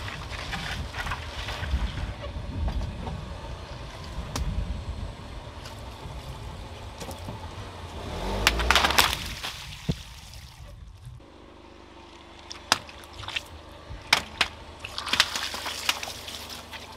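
Car tyre rolling over a row of long water-filled balloons on concrete, with a low rumble. A loud burst of a balloon and water comes about halfway through. Several sharp pops with splashes of water follow near the end.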